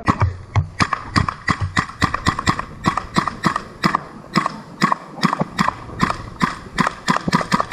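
A rapid, irregular series of sharp clacks, several a second, starting abruptly.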